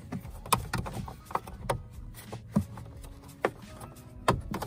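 Irregular light clicks and knocks of a plastic wiring connector and its rubber boot being wiggled back through the hole in a car's door jamb.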